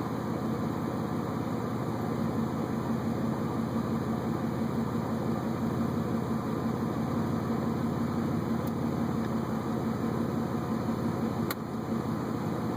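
Buick Regal GS engine idling steadily with an even pulse, checked for a random misfire; none stands out. A single brief click about eleven and a half seconds in.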